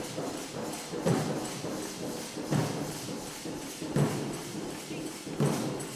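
A group of large dollu barrel drums beaten with sticks in a steady pounding rhythm: a heavy accented stroke about every second and a half, with lighter strokes filling between.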